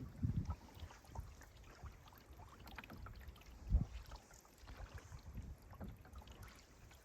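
Canoe being paddled: quiet paddle strokes and water sounds with scattered small ticks and several low thumps, the loudest a little under four seconds in.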